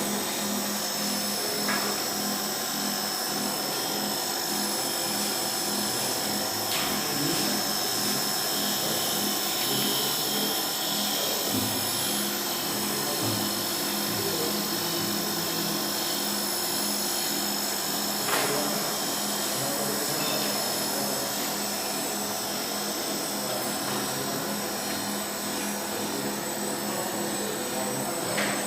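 Polyurethane gasket dispensing machine running steadily: a continuous motor whine with high steady tones, and a few sharp clicks about 2, 7 and 18 seconds in and near the end.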